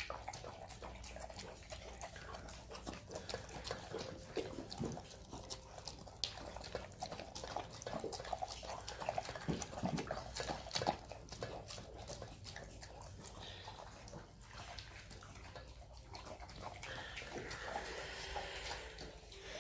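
A Jindo-mix dog eating soft cooked rice-and-vegetable food from a stainless steel bowl: continual wet chewing and lapping with many quick irregular clicks against the metal bowl. A hungry dog eating fast.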